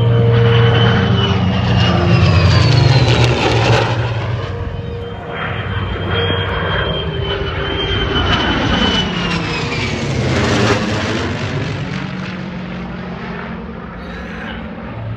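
An F-35 Lightning II jet and a P-51 Mustang with its V-12 piston engine flying past together. The jet's high whine sits over a low engine drone, shifting in pitch as they pass overhead, loudest in the first few seconds and fading after about ten.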